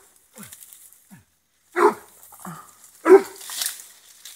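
Hunting dog barking at a hutia up in the trees: two loud barks about a second and a half apart, with fainter sounds from the dog between them.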